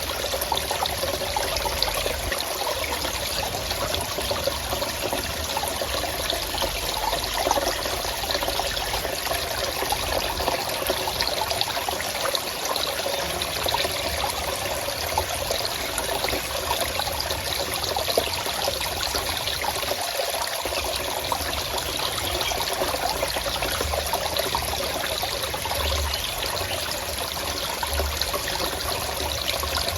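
Forest stream running and trickling steadily over rocks.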